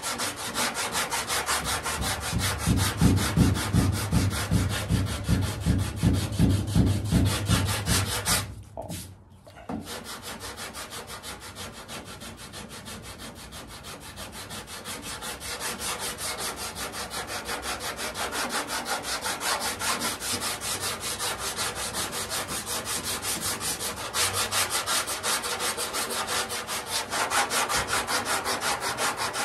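Long hand sanding block with sandpaper rubbing back and forth over body filler on a car fender, in quick, even strokes. The strokes are heavier for the first several seconds, pause briefly about nine seconds in, and then carry on lighter.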